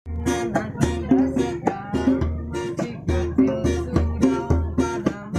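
Music led by a plucked string instrument, with a steady bass beat under a melody of short plucked notes.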